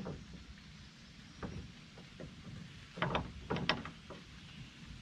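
Light metallic clicks and taps of a smooth bore pipe wrench being set on and worked around a Zerk grease fitting as it is snugged up, a few scattered single clicks, then two sharper clusters about three and three-and-a-half seconds in. A faint steady hiss lies underneath.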